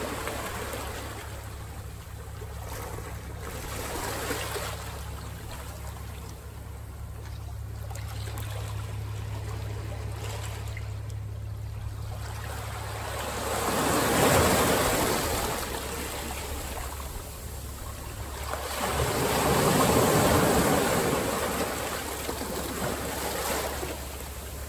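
Ocean surf washing and breaking, with two louder wave surges, one about halfway through and a longer one near the end. A steady low rumble of wind on the microphone runs underneath.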